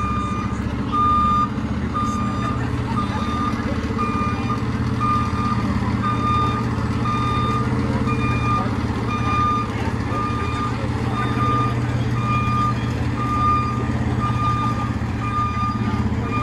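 Tower ladder fire truck's reversing alarm beeping about once a second over its engine running, as the truck backs slowly into the station bay.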